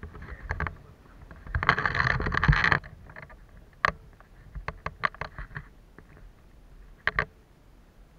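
Workshop handling noises: a rustling scrape lasting about a second, then scattered sharp clicks and knocks.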